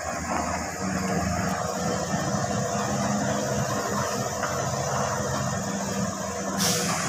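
Heavy truck's diesel engine running under load as it hauls a lowboy trailer with an excavator along a dirt road, a steady drone. Near the end a hiss starts up over the engine.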